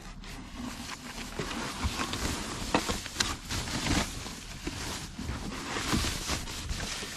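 A cardboard box being opened by hand and its packaging handled: continuous rustling and scraping with scattered light knocks.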